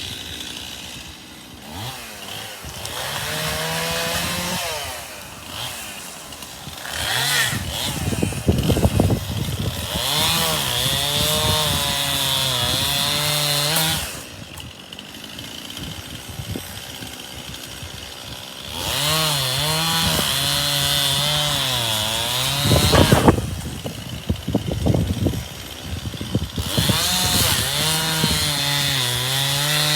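Chainsaw cutting through ash wood, its engine speed rising and falling under load, with a few seconds back at idle around the middle.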